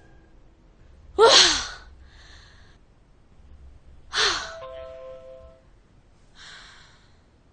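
A person sighing twice, loud and breathy, the voice falling in pitch, about a second in and again about four seconds in. A short steady tone follows the second sigh.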